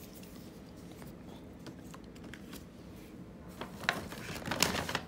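Handling noise of plastic body-spray bottles being picked up and set down: faint clicks and rustles, with a cluster of louder clicks near the end.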